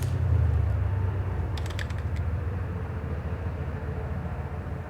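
A low steady rumble that slowly fades, with a few faint clicks.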